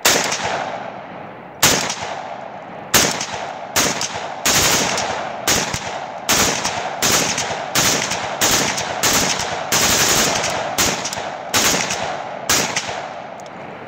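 Russian AK-74 firing 5.45×39 mm rounds, about twenty shots, each with a ringing echo. The first three are spaced over a second apart; the rest come in a steady string of about two a second as the rifle is bump fired with no bump stock.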